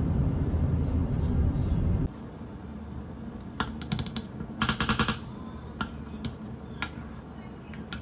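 A loud low rumble that cuts off abruptly about two seconds in, then light sharp clicks and taps, with a quick run of rapid clicks about five seconds in and a few single clicks after.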